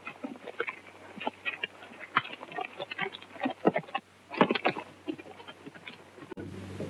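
Horses' hooves stepping and shuffling on leaf-strewn ground: a run of irregular knocks and scuffs over the low hum of an old film soundtrack. A little over six seconds in, the knocks stop and a steadier, louder hum takes over.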